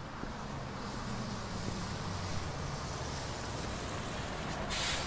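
City bus engine running as the bus pulls up, with a short burst of compressed-air hiss near the end.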